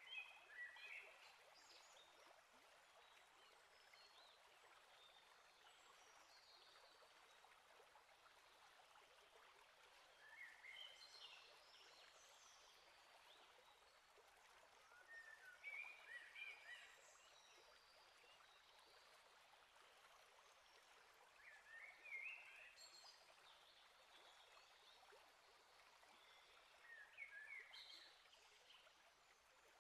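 Faint steady hiss of outdoor ambience, with a small songbird singing five short high phrases spaced several seconds apart.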